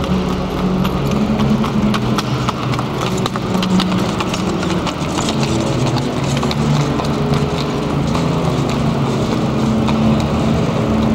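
Horse hooves clip-clopping on the paving as a horse-drawn carriage passes close by, with many sharp clicks. Under them, bowed double basses play low held notes that change pitch every half second or so.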